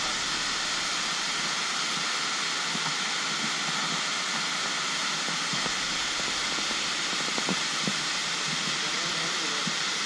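Waterfall cascading over rocks into a pool: a steady, even rush of falling water.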